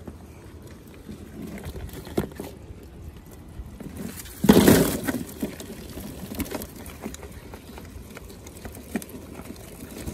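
Live crayfish being dumped from a mesh net bag into a plastic cooler: a burst of rattling and rustling about halfway through, with scattered small clicks of the crayfish and bag against the plastic before and after.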